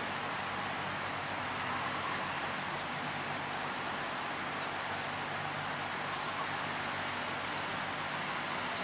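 Steady outdoor rushing noise, an even hiss with no breaks, with a faint low hum underneath.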